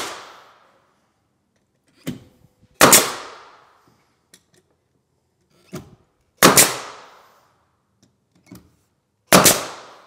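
Pneumatic angled finish nailer firing three nails into a white oak stair tread, one shot about every three seconds, each a sharp bang with a brief ringing tail and a lighter click just before it.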